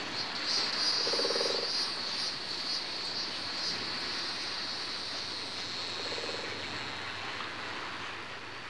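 Outdoor chorus of frogs and insects: a steady high insect chirring, with a frog croaking in two short pulsed calls, about a second in and again about six seconds in.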